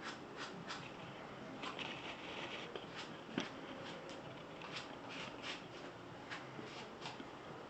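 Spreader working two-part epoxy filler, irregular soft scraping and clicking as the white filler and red hardener are mixed to pink, with one sharper click about three and a half seconds in.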